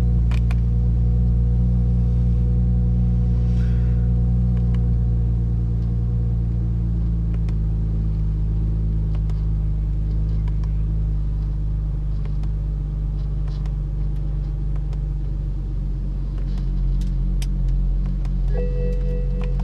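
BMW 335i's N54 twin-turbo inline-six idling steadily, with a few faint clicks over it.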